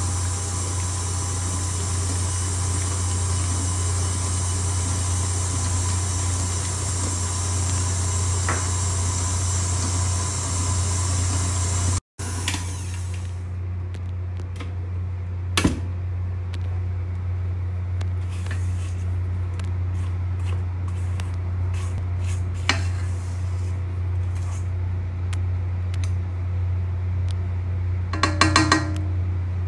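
Electric stand mixer running steadily, its motor humming as the flat paddle beats cookie dough in a stainless steel bowl. After a brief dropout about 12 seconds in, the high whine is much weaker, with scattered clicks. Near the end come a few ringing knocks on the metal bowl.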